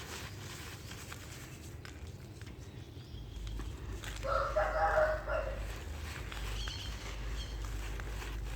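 A rooster crows once, about four seconds in, the loudest sound here. Beneath it, faint crackles of dry dirt crumbling, and a low rumble from about three seconds in.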